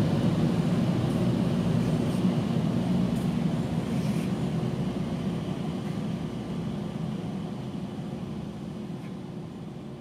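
A low, steady vehicle-like rumble that slowly fades away, with a few faint clicks in the first half.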